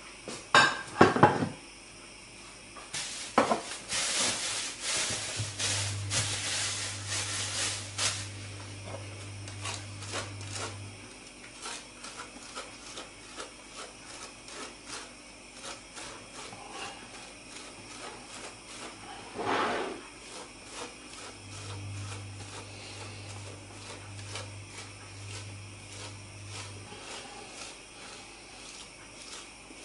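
Frozen shortcrust dough being grated on a metal box grater: repeated rasping strokes, densest in the first several seconds and fainter later on. A few sharp knocks in the first couple of seconds, and another about twenty seconds in, are the loudest sounds.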